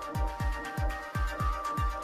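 Electronic background music with a steady kick-drum beat and held synth notes.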